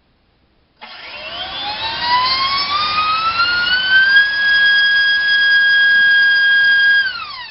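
Racerstar BR2406S 2300 kV brushless motor swinging a DALPROP 4045 three-blade propeller on a 5S battery, spooling up from a stop about a second in: a loud whine and prop rush rising steadily in pitch, held steady for about three seconds, then cut and winding down near the end.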